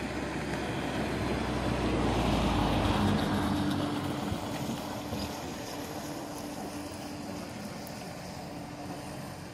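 Feilun FT011 radio-controlled speedboat's brushless electric motor running at a steady pitch. It grows louder to a peak about two to three seconds in as the boat passes close by, then fades. Wind rumbles on the microphone during the first few seconds.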